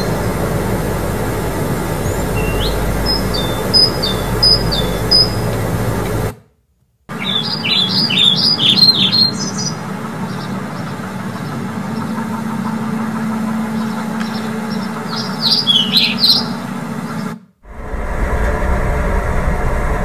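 Two bird ambience recordings, one after the other: short high chirps and calls from several small birds over steady background noise, with a clean silent gap of about a second between them. A little before the end the birds stop and a low steady rumble of a boat interior begins.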